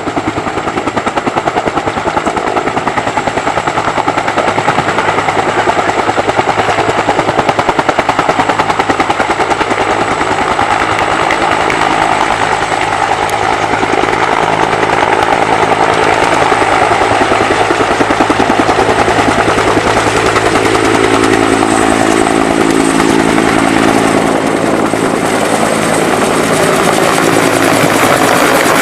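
Bell helicopter running, its rotor beating in a rapid, steady rhythm over the turbine's tone, loud and continuous throughout.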